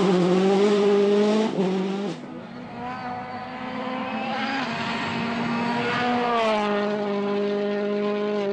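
A Citroën DS3 rally car's turbocharged four-cylinder engine is revving hard at speed on gravel. The note climbs, then breaks off about two seconds in. It comes back held high and steady, over tyre and gravel noise, and dips once about six seconds in.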